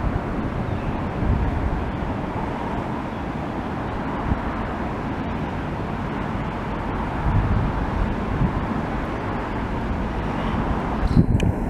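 Ocean surf washing onto the shore: a steady rushing with a low rumble that surges now and then.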